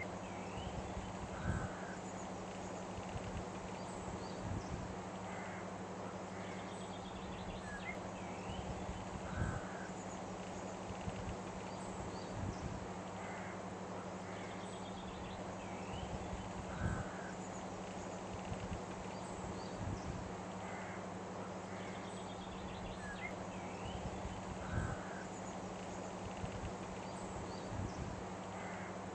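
Looped outdoor ambience: a steady hiss and low hum with short bird calls and soft low thumps, the same pattern repeating about every seven to eight seconds.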